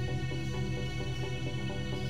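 Background music: sustained low tones under a quick run of repeated notes.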